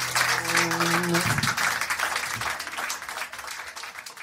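Audience applauding as the band's final chord rings out and stops about a second in; the clapping then fades away.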